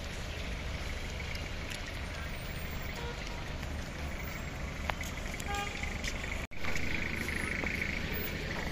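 Outdoor night ambience: a steady low rumble of distant traffic, with a steady high insect chirring that stands out more after the sound cuts out for an instant about six and a half seconds in.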